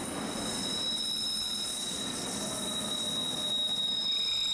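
A passing train's rolling rumble fading away over the first few seconds, with a steady high-pitched whine throughout.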